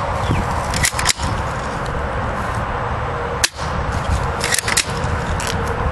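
Spring-powered airsoft rifle firing: sharp snapping clicks, a pair about a second in, one in the middle and another close pair near the end, over a steady background hiss.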